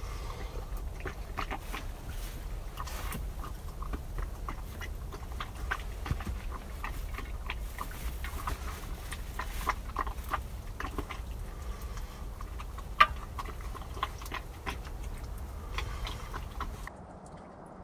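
Eating with a spoon from a cup: chewing and scattered sharp spoon clicks, one much louder about thirteen seconds in, with small crackles from a wood campfire. Under them runs a low steady rumble that drops away near the end.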